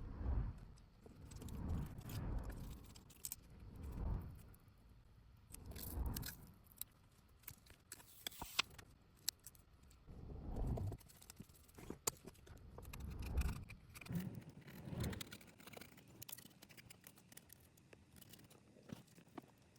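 Faint clicks, ticks and light scrapes of small repair tools and phone parts being handled during a smartphone screen replacement. Dull low bumps come every couple of seconds.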